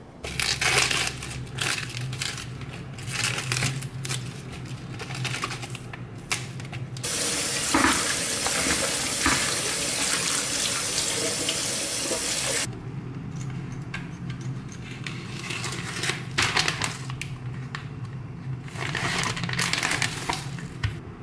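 Kitchen tap running into a plastic colander as lettuce is rinsed by hand: a steady rush of water for about six seconds in the middle. Before and after it come irregular clattering and rustling from kitchen handling and a plastic food packet.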